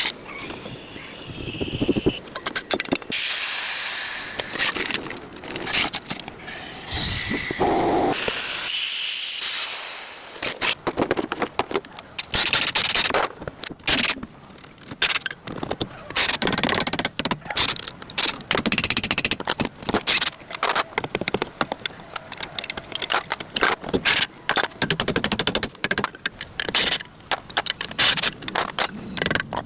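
A rapid, irregular clatter of knocks and clicks with scraping, most of it dense and continuous after about ten seconds in.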